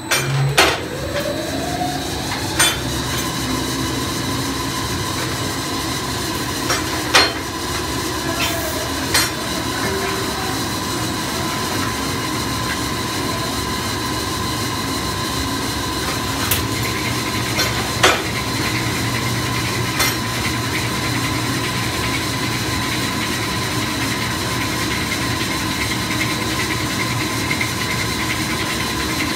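Automated machining line running with a steady mechanical hum and a constant whine. Sharp clicks and clunks from its moving parts come every few seconds in the first two-thirds, and a short rising whine sounds near the start.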